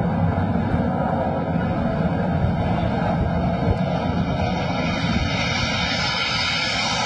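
Jet engine noise of a fighter approaching low over the carrier deck, a steady dense rush whose high hiss grows over the last few seconds as the jet comes closer.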